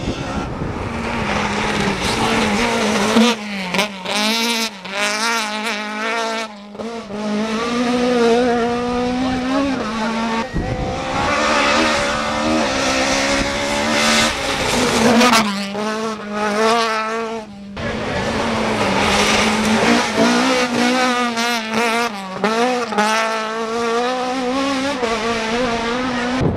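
Toyota rally car's 1600cc four-cylinder engine revving hard to high rpm under full acceleration, its pitch climbing through each gear and dropping at each upshift, several times over.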